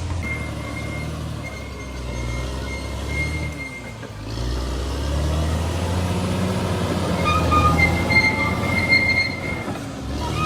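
Bulldozer working: its diesel engine runs steadily and dips briefly about four seconds in. A high-pitched metallic squeal comes twice, once early and again in the second half.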